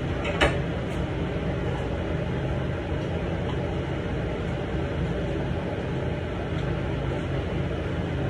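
Steady whirring hum of a running fan or household appliance, with one short click about half a second in.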